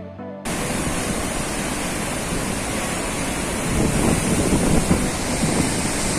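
Waterfall: a steady, loud rush of falling water and spray that cuts in suddenly about half a second in, just as a piece of background music ends. Wind and spray buffet the microphone with an uneven low rumble, stronger after the middle.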